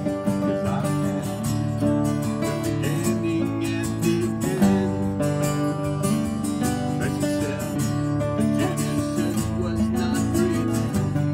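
Two acoustic guitars playing together, one strummed steadily and the other picked, in a country-style song; a man's singing voice comes in near the end.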